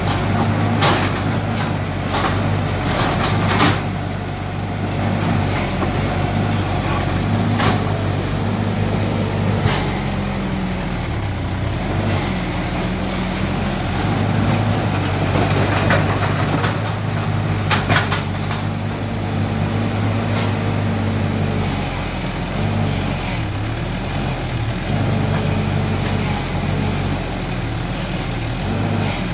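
Mini excavator's engine running steadily, its pitch sagging briefly now and then as it takes load while digging. Scattered clanks and knocks.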